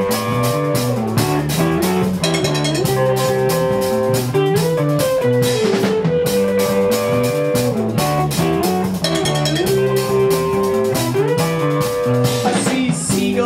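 Rock band playing an instrumental break: a guitar lead whose held notes slide from one pitch to the next, over bass guitar and a drum kit keeping a steady beat.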